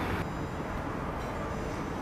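Steady outdoor street ambience with the hum of idling vehicles. The low engine hum drops away just after the start, leaving a quieter, even background noise.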